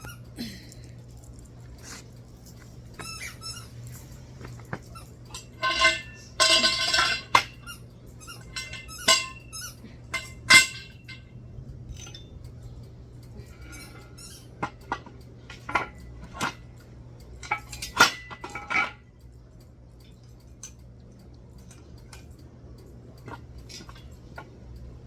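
Metal parts being handled during assembly: irregular clinks and knocks with scattered squeaks, busiest about six to eleven seconds in and again around eighteen seconds, then quieter.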